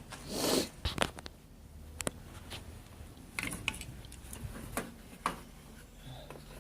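Hand tools and metal parts being handled: a short rustle, then a run of irregular, sharp clicks and clanks.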